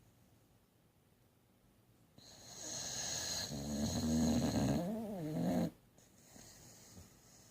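Sleeping boxer dog snoring: one long snore starting about two seconds in, beginning as a rasping hiss and turning into a low rumble that wavers up and down in pitch before cutting off sharply. A faint breath follows.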